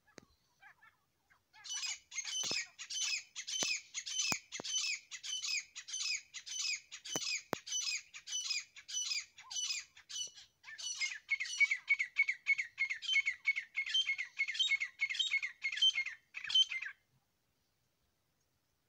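Grey francolin calling: a long, loud run of harsh, rapidly repeated notes, about two to three a second, starting about two seconds in. After a short break about halfway through, the calling resumes lower-pitched and stops a couple of seconds before the end.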